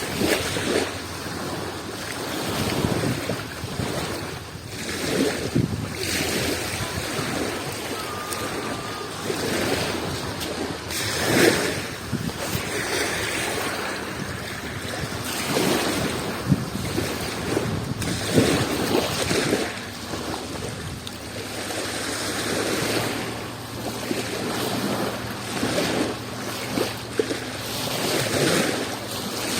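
Adriatic Sea waves breaking and washing ashore in repeated surges that swell and fall away every few seconds, with a few sharper, louder splashes along the way.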